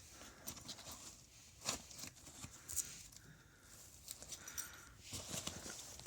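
Faint handling noises: scattered light clicks and soft rustles of a backpack and its attached gear being handled.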